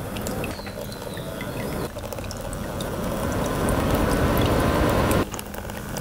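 Ultrasonic mist maker churning and spattering the water in a plastic tub, with the small CPU fans of a homemade mist cooler running. The sound is a steady watery gurgle with scattered small ticks of droplets, and it changes abruptly twice.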